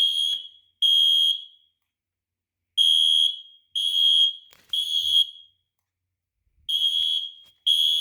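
Fire alarm sounder beeping a high-pitched tone in the temporal-three evacuation pattern, three beeps then a pause, repeating. The system has gone into alarm after an i3 smoke detector was set off with canned test smoke.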